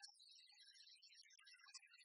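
Near silence: faint ambience with scattered high-pitched traces.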